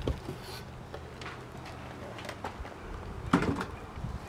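Faint rustling and small clicks of packaging being handled in a cardboard box, with a brief louder noise about three seconds in.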